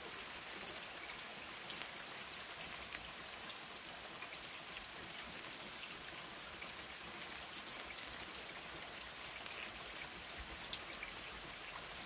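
Steady rain falling, an even hiss with many small drop ticks, on a yard that is flooded into a large puddle.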